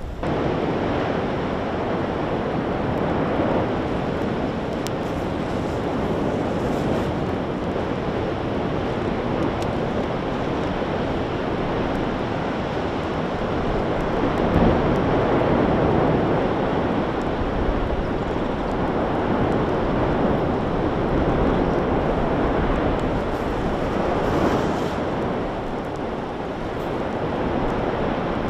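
Steady rushing, surf-like noise of Kīlauea's Fissure 8 erupting: lava fountaining and gas venting, swelling briefly about halfway through.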